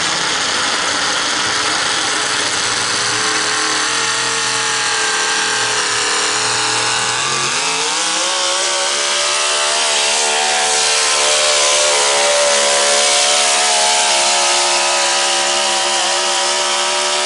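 Modified 4x4 pulling truck's engine running loud at high revs under load. Its pitch climbs about seven seconds in, then holds high and steady.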